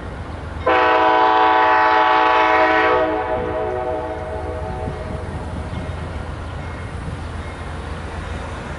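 Amtrak GE P42DC diesel locomotive sounding one horn blast, a chord of several notes, starting suddenly about a second in and lasting about two seconds. Its lower notes trail off over the next two seconds. A steady low train rumble runs underneath as the train pulls out.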